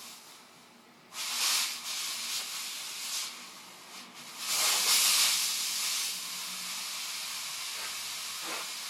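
Handheld steam cleaner jetting steam from its nozzle: a hiss that starts about a second in, surges twice, then settles into a steady hiss.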